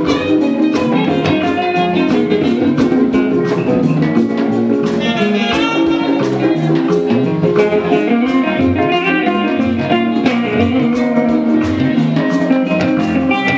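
Live fuji band playing: a plucked guitar line over percussion that keeps a steady beat.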